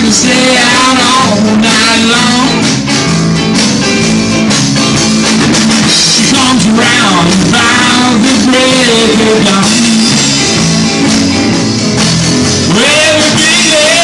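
Live rock band playing loudly: electric guitar over bass and drums, with the amplified sound of a small room.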